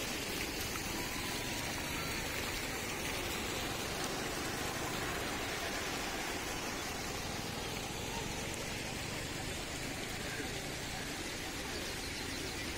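Flowing water from garden fountains, a steady gurgle without breaks.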